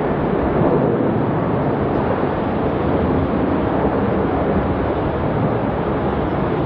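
Boeing 737-800's CFM56 jet engines taking off, a steady roar.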